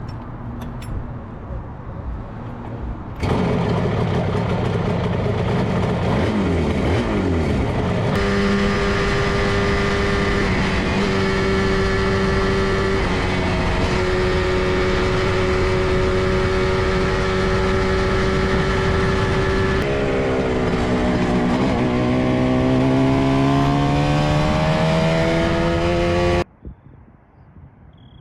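Kawasaki A1SS Samurai's two-stroke twin engine running under way, loud and steady in pitch. About twenty seconds in, the pitch drops, then climbs steadily as it accelerates again. The sound starts and cuts off abruptly.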